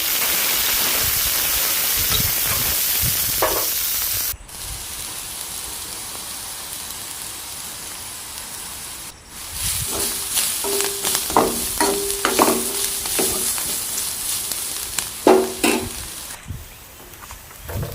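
Food frying in hot oil in a pan, sizzling steadily, with a spatula stirring and clinking against the pan in the second half. The sizzle cuts off and resumes abruptly a few times.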